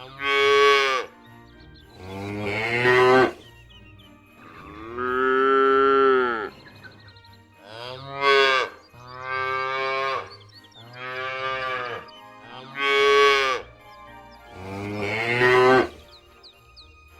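Cattle mooing repeatedly: about seven long, drawn-out moos, each one to two seconds, with short pauses between them.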